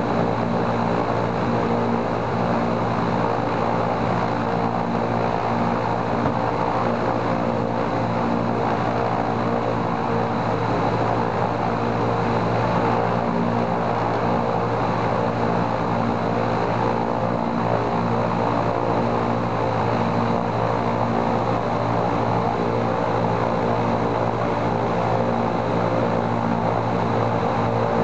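Il-14's right-hand Shvetsov ASh-82T twin-row radial engine running steadily on a ground run-up, propeller turning, during a check of the engine's mixture regulator.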